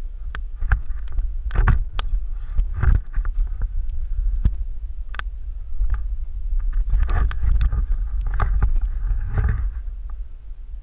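Handling noise of an action camera being moved about: a heavy low rumble with many sharp knocks and clicks, and a busier rustling stretch about two-thirds of the way through.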